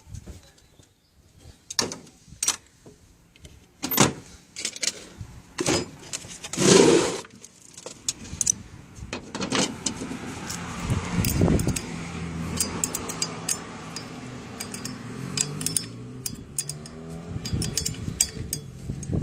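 Small metal tools and parts clinking and tapping as a grease nipple is fitted into a universal joint on a propeller shaft, with a louder short burst of noise about seven seconds in.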